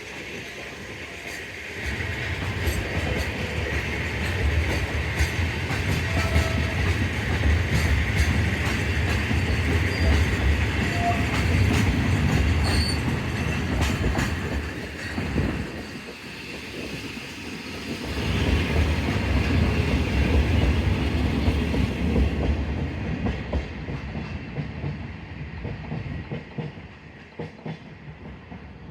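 Train running on rails with wheel-on-rail clatter and rumble, in two louder stretches with a lull between, easing off near the end.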